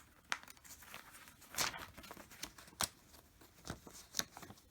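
A handful of sharp plastic clicks and light rustling as small LEGO pieces are handled and pressed into place.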